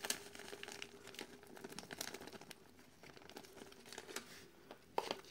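Hands kneading a damp, crumbly fish-bait mash in an enamel plate: faint, irregular crackling, with a few sharper clicks about five seconds in. A faint steady hum runs underneath.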